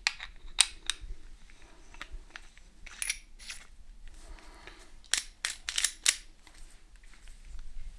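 Handling noise from airsoft gear being picked up and set down: a string of short sharp clicks and light knocks at irregular intervals, with a quick run of them about five to six seconds in.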